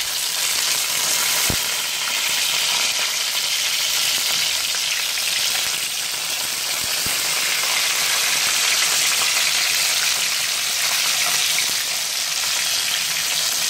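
Plaice fillets shallow-frying in hot oil in a pan: a steady sizzle, with two faint clicks about one and a half and seven seconds in.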